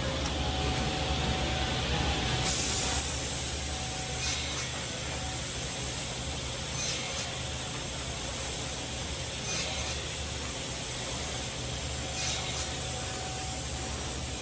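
Woodmaster WM-EKE-SQ automatic drilling and cutting machine running with a steady hum and high hiss. Its pneumatic cylinders let out short bursts of compressed air every two to three seconds, the loudest about two and a half seconds in.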